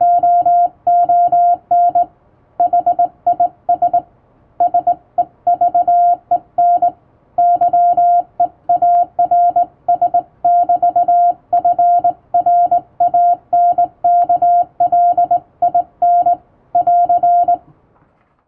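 Hand-sent Morse code on a straight (up-and-down) telegraph key: a single steady beep keyed on and off in dots and dashes with uneven gaps between characters and words, with faint clicks from the key. The sending stops shortly before the end.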